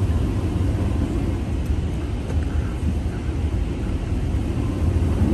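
Steady low rumble heard inside a car's cabin as the car idles in line at an automatic car wash entrance.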